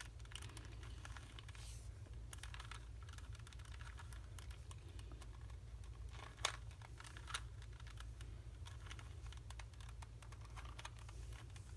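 Rubik's Cube layers being twisted by hand: faint, irregular clicking of the plastic pieces, with a sharper click about six and a half seconds in.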